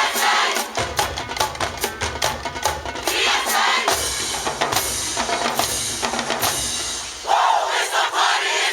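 High school marching band playing, its drums beating out a fast, even rhythm of about four strokes a second; the sound gets louder and fuller about seven seconds in.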